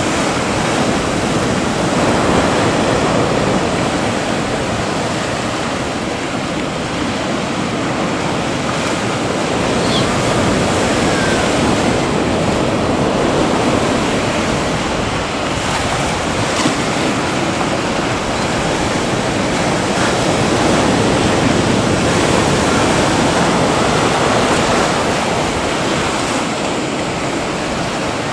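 Ocean surf and choppy sea rushing steadily, swelling and easing in slow surges, with some wind.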